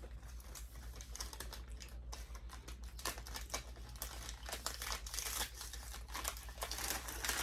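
Close-up crunching and chewing of crisp Thai coconut rolls: a dense run of small, irregular crackly clicks.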